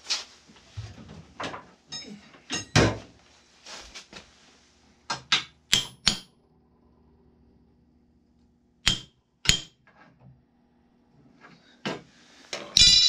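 Hammer striking a metal bracket on the square steel tube of a sprayer boom: sharp, ringing metallic knocks, four in quick succession, then two more, and a last, loudest strike near the end. The strikes are tapping the bracket into position on the boom.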